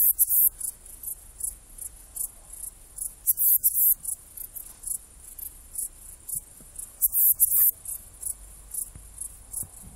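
Saddle-backed bush-cricket (Ephippiger ephippiger) stridulating: short, very high-pitched chirps repeated several times a second, with louder, longer runs of chirps about every three and a half seconds.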